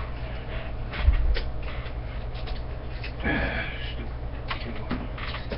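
Hands handling TV antenna parts and loose hardware on a table: rustling, small clicks and knocks, with a louder thump about a second in and a short higher sound a little past three seconds in, over a steady low hum.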